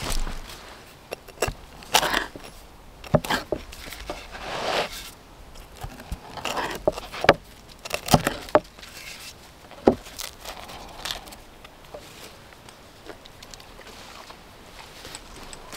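A hatchet blade cutting through a baked pizza on a wooden board: the crust crunching and sharp knocks as the blade strikes the board, over several separate strokes.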